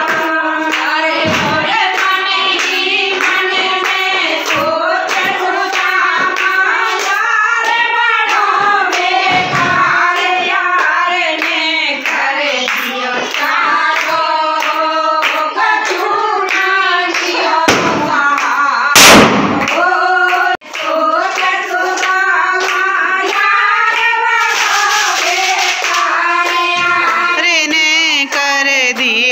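Women singing together with steady hand clapping keeping the beat. A single loud, sharp burst stands out about two-thirds of the way through.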